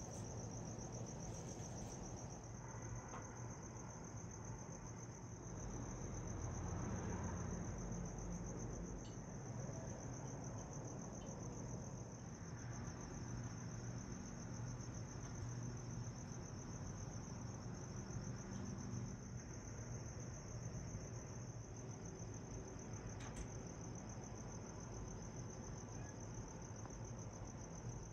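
Crickets trilling without a break, one steady high-pitched trill, over a low background rumble.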